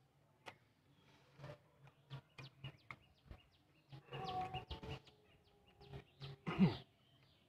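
Close-up eating sounds: a run of wet mouth clicks and smacks from chewing, with fingers mixing rice on a steel plate, busiest about four seconds in. Near the end there is one short, louder call that rises in pitch.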